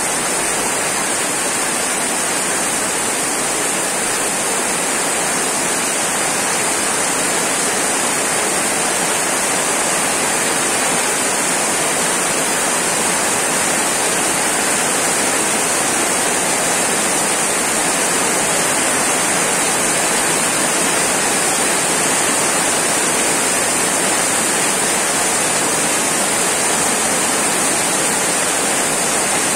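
Heavy tropical downpour falling steadily on a wet paved street: a dense, even hiss that neither builds nor eases.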